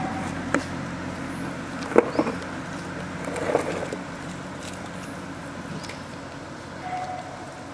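Distant motor vehicle running, a steady low hum that slowly fades, with a few short sharp clicks about two seconds in and a brief cluster of clicks a little later.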